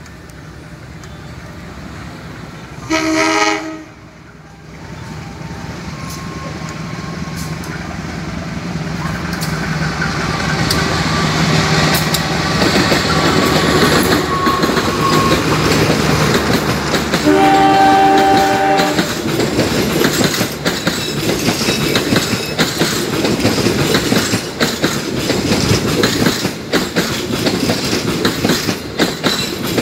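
CC 201 diesel-electric locomotive (a GE U18C) sounding its horn twice, a short blast about three seconds in and a longer one about halfway through, as it approaches hauling a passenger train. The rumble of the engine and train grows louder as it comes close. Then the passenger carriages roll past, their wheels clacking steadily over the rail joints.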